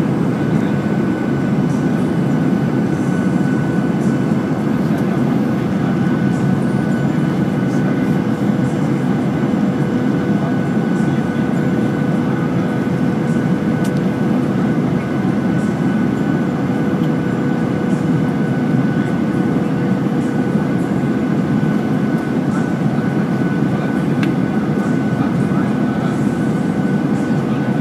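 Cabin noise inside a Boeing 737-800 on approach: a steady roar of airflow and the CFM56-7B engines, with a steady hum and a fainter, higher whine, each held on one pitch.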